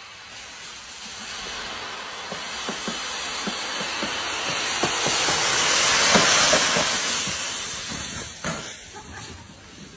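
A rushing hiss that swells to its loudest a little past the middle and then fades away, with scattered small clicks underneath.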